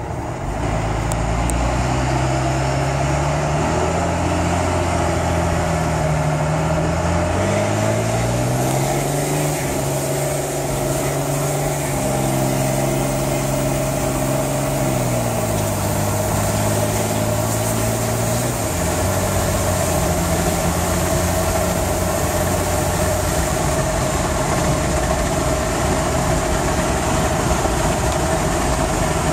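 1999 Cummins 5.9-litre 24-valve turbo-diesel, running on an Edge Comp performance box set to level 5, pushed hard. The engine note climbs in stages through the first half and holds high, then falls back about two-thirds of the way through and settles lower.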